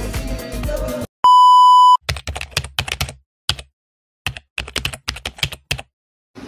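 Music cuts off about a second in, followed by a loud, steady electronic beep lasting under a second. Then comes a typing sound effect: clusters of quick keyboard clicks with short silent gaps between them.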